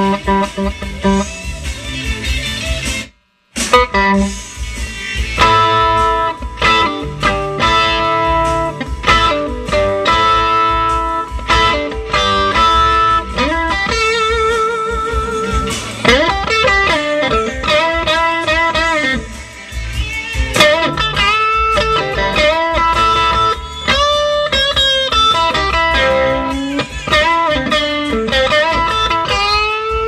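Electric guitar, a Stratocaster, played clean through a 1960 Fender tweed Bassman tube amp that has a new Mallory 150 filter capacitor in place of a leaky Astron, giving well-defined notes. Single-note lines, with vibrato and bent notes in the second half. The sound drops out for a moment about three seconds in.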